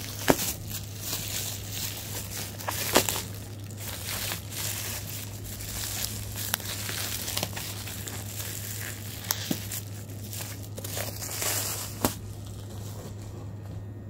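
Bubble wrap and plastic packaging being crinkled and torn open by hand, with a few sharp clicks along the way; the crinkling dies away near the end. A steady low hum runs underneath.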